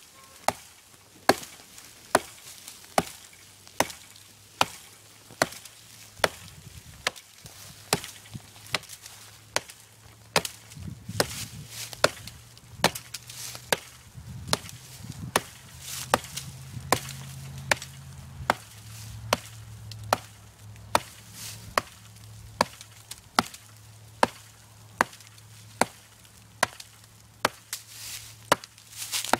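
Handmade Danish-style flint axe chopping into the trunk of a small living tree. Its sharp blows land steadily, a little more than one a second.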